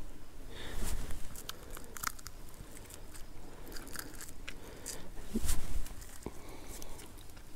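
A cooked panfish being pulled apart by hand: scattered crisp crackles and crunches, a little louder about half a second in and again about five seconds in.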